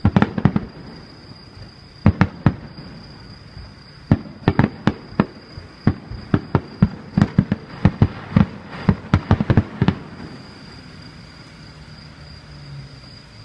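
Aerial fireworks shells bursting in a rapid string of sharp bangs, coming in clusters, with the volley ending about ten seconds in.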